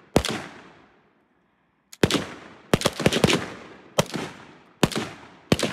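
Gunshots, each sharp crack trailing off in an echo. There is one shot just after the start and a short dead gap, then a run of shots: several in quick succession around the middle, then single shots a little under a second apart.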